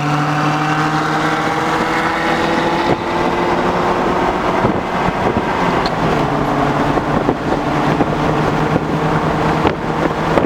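Honda Prelude's four-cylinder engine pulling under acceleration, its pitch climbing slowly, with a break about three seconds in like a gear change before it climbs again; steady road and wind noise underneath.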